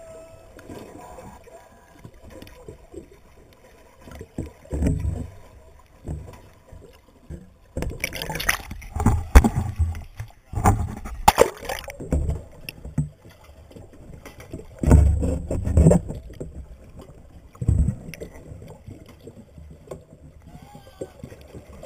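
Water sloshing and gurgling around a camera held just below the surface, heard muffled. Louder bursts of splashing and rushing water come in the middle, as the camera breaks the surface and goes back under.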